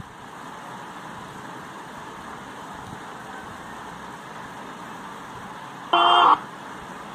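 Steady background noise hiss while the TV broadcast sound is cut off during buffering, broken by a short loud burst of broadcast sound about six seconds in.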